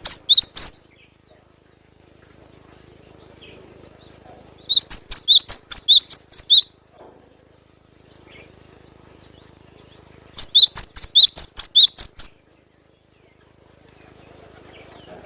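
Gelatik batu (cinereous tit) singing in bursts of rapid, sharp, high repeated notes, about five a second. A short burst comes at the start, then two longer runs of about ten notes each, around five and ten seconds in.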